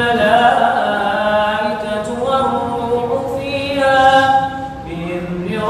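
A man's voice chanting Quranic recitation in Arabic through a microphone, in long, drawn-out melodic phrases with a short pause near the end before the next phrase.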